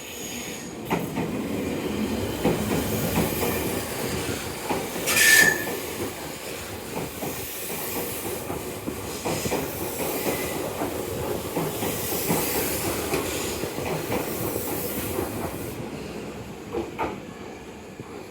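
Tobu 100 series Spacia limited express train passing at speed, with a steady rumble and repeated clicking of wheels over the rail joints. A brief, loud high-pitched sound comes about five seconds in.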